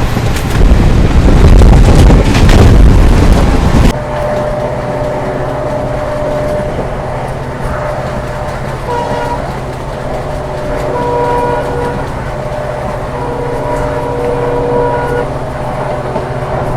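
Passenger train running behind a WDP4D locomotive, whose EMD two-stroke V16 diesel drones steadily. A loud rushing noise fills the first four seconds and cuts off abruptly. From about nine seconds in, the locomotive's horn sounds in several blasts.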